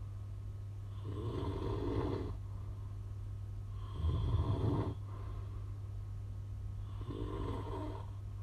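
A man with sleep apnea snoring, three snores about three seconds apart, the middle one the loudest, over a steady low hum.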